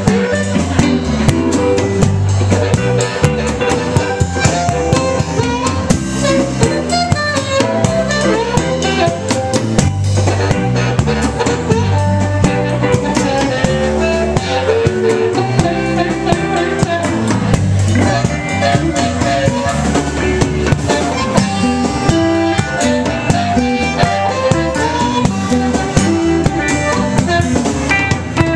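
Live electric blues band: a harmonica solo played cupped against a vocal microphone, over electric guitar, electric bass and a drum kit keeping a steady beat.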